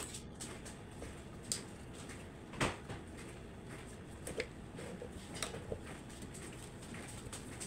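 Scattered light clicks and knocks of bread slices being laid onto the plates of an electric sandwich maker, with a sharper knock about two and a half seconds in. The maker's plastic lid is pressed shut past the middle.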